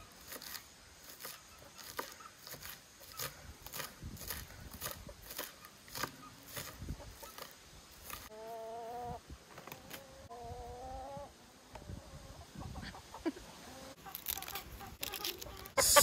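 Kitchen knife chopping spring onions on a wooden cutting board, in short strokes about two a second. About halfway through, a chicken calls twice.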